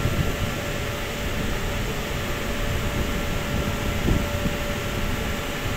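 Steady drone of running crematorium machinery, heavy in the low range, with a faint steady hum tone over it. There is a light knock about four seconds in.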